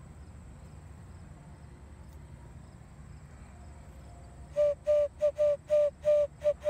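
Small clay vessel whistle, pinch-formed from local clay, blown in a run of about seven short toots on one steady pitch, starting about four and a half seconds in.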